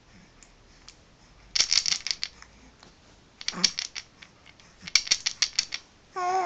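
Wooden ring baby rattle shaken in three short bursts of clacking beads, about a second and a half in, near the middle and again about five seconds in; a voice starts just before the end.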